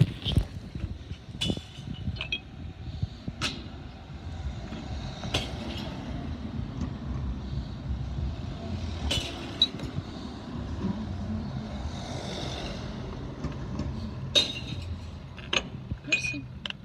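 Glass bottles pushed one at a time through the rubber flap of a street glass-recycling bin, dropping and smashing inside with several sharp crashes a few seconds apart, over a steady low rumble.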